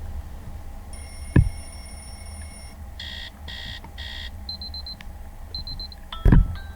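Infinix Hot 11S alarm tones previewed one after another through the phone's speaker: a steady electronic beep tone, then three buzzy beeps about half a second apart, then two short rapid-pulsed trills, and a chiming melody starting near the end. Two loud thumps, about a second and a half in and near the end.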